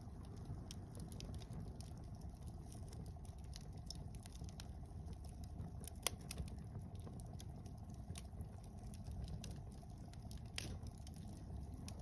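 Wood fire of mixed softwood and hardwood logs burning, with scattered crackles and small pops over a low steady rumble; one sharp pop about halfway through and another near the end.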